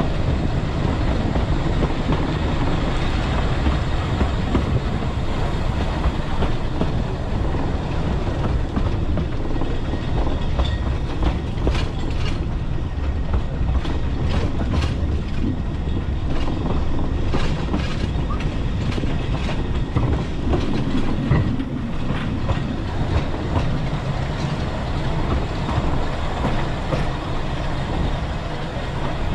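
Talyllyn Railway narrow-gauge train running along the track: a steady low rumble, with sharp irregular clicks from the wheels on the rails coming thickest through the middle stretch.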